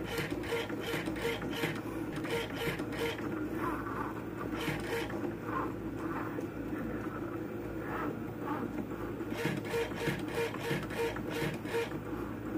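Cricut Maker cutting thin felt with its rotary blade: a steady motor whir with a pulsing tone about three times a second and runs of quick ticks as the carriage moves. The ticking and pulsing drop out for a few seconds midway, then resume.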